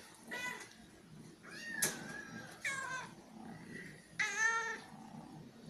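A domestic cat meowing four times in short separate calls, the one about four seconds in the loudest.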